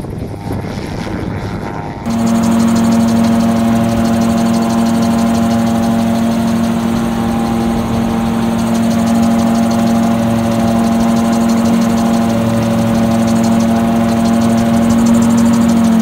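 Gyrocopter's piston engine and pusher propeller running steadily at cruise power. For the first two seconds it is heard more quietly from the ground, mixed with wind. After that it is loud from on board the aircraft, a steady droning note with several overtones.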